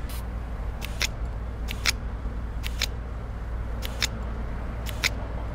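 Air hose chuck pressed onto a car tyre's valve stem in short spurts, giving about nine brief hisses of air, some in quick pairs, roughly one a second, over a steady low hum.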